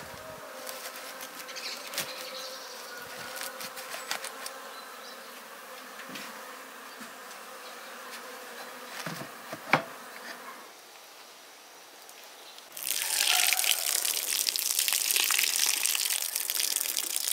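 Honeybees buzzing around an opened wooden hive, with a few sharp knocks as the hive parts are lifted and set down. From about 13 s in, a louder steady splashing of liquid poured out of a pot through its lid onto the ground.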